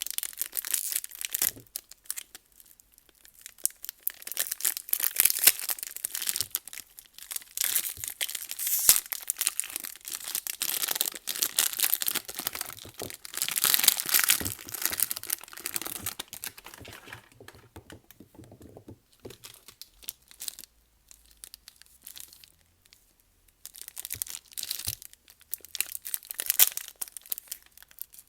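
Soap wrapping being crinkled and torn open: crackly packaging rustling in irregular bursts, with a quieter stretch about two-thirds of the way through.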